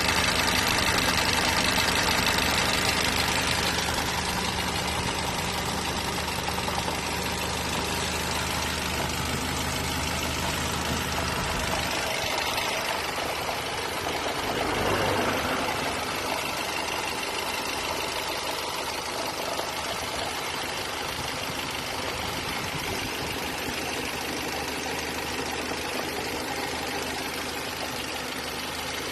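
Mercedes-Benz B180 engine idling, with the strange noise that the owner traces to the hose connected to the brake servo (the brake booster vacuum hose). The low hum drops away about twelve seconds in, with a brief swell a few seconds later.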